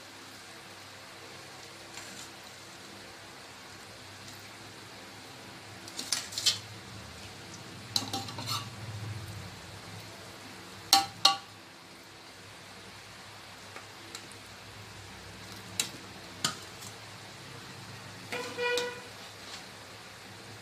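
A spoon clinking and scraping against a metal cooking pot in a few scattered strikes while chicken gravy is spread over a layer of rice, with two sharp clinks about halfway through and a short ringing knock near the end.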